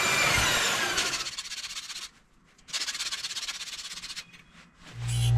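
Benchtop band saw cutting an aluminium strip, its motor whine falling as it spins down over the first second, then quiet rubbing and handling. A loud steady low hum starts near the end.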